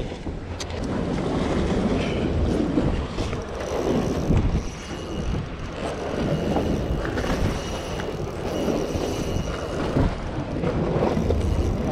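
Wind rumbling and buffeting on the microphone, rising and falling, with a faint thin high tone that comes in for a few seconds midway.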